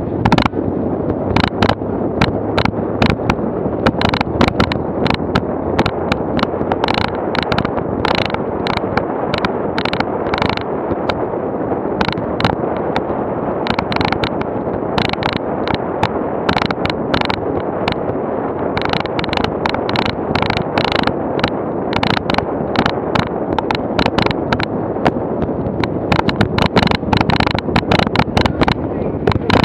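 A vehicle rolling slowly over a cobblestone street, heard through a bonnet-mounted camera: a steady rough rumble with constant irregular rattling knocks as the wheels and the camera mount shake over the stones.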